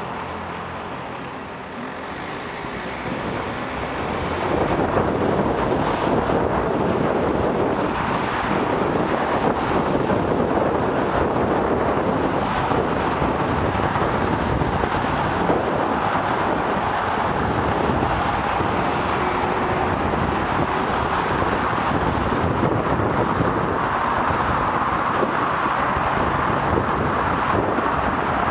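Idling traffic at the lights for the first few seconds. Then, about four seconds in, a steady rush of wind and road noise takes over on the bicycle camera's microphone as the bike moves off and holds about 30 km/h, with car traffic alongside.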